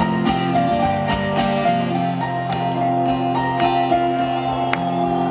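Live rock band playing through a stadium sound system in an instrumental passage, guitars to the fore over steady bass and drums.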